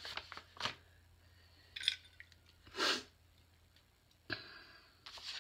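Paper and cardstock being handled while mail is unpacked: a few scattered soft rustles and taps, with a longer rustle about three seconds in.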